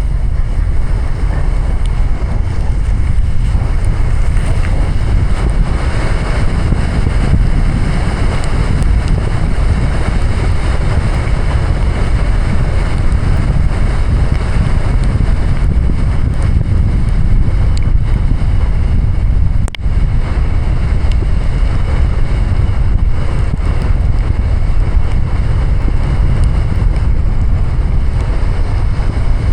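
A car driving through heavy rain: a loud, steady rush of rain, wind and tyres on a wet road over a deep rumble, with a momentary break about twenty seconds in.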